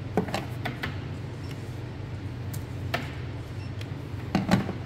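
Several sharp clicks and knocks from small objects being handled on a desk: a quick cluster near the start, a single click around the middle and another cluster near the end. A steady low hum runs underneath.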